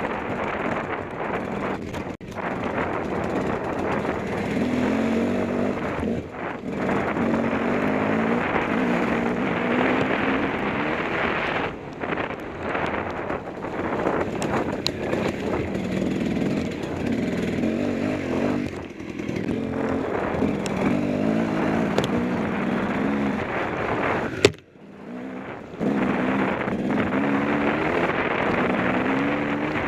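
KTM 250 XC-W two-stroke enduro motorcycle ridden hard, its engine revving up and down as the throttle is chopped and opened again every few seconds. About 24 seconds in there is a sharp knock and the engine note drops out for about a second before picking up again.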